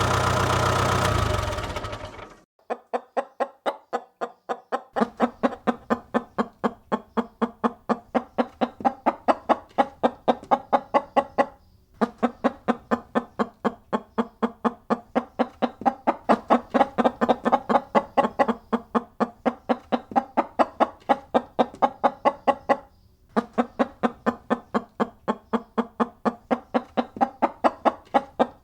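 A loud sound cuts off about two seconds in. Then a chicken clucks in rapid, even runs of several clucks a second: three long runs with short breaks between them.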